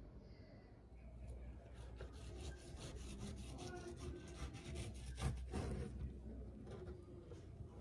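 Knife sawing through the crumbly baked topping and shortcrust of an apple pie and scraping on a wooden cutting board, in a run of quick rasping strokes, with one louder stroke a little past the middle.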